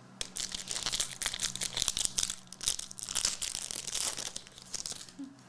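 Plastic wrapper of a trading card pack crinkling and crackling as it is handled and torn open, fading near the end.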